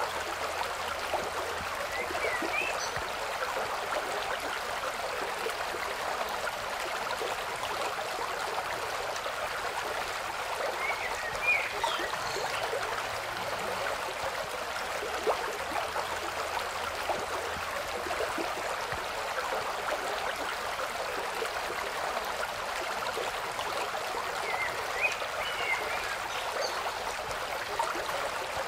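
Steady rushing noise like running water, with brief high chirps three times: about two seconds in, around eleven seconds, and near twenty-five seconds.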